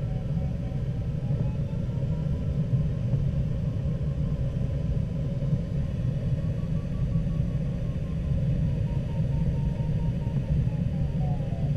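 Steady rush of airflow over a glider's canopy in flight, heard in the cockpit as a low rumble. Over it, the variometer's audio beeps softly, its pitch slowly rising and falling as the climb rate changes in the turn.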